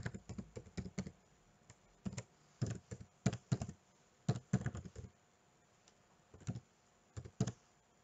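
Typing on a computer keyboard: irregular runs of key clicks, with a pause of about a second past the middle, stopping shortly before the end.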